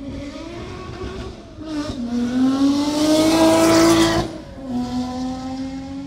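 Ferrari engine revving under acceleration. Its pitch climbs for about two seconds to a loud peak, then cuts off sharply just after four seconds and comes back at a lower, steady pitch.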